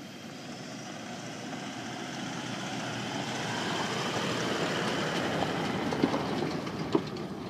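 A four-wheel-drive towing a tandem-axle caravan drives slowly past on a sand track: engine and tyre noise swell to their loudest about halfway through, then fade. Two light knocks near the end.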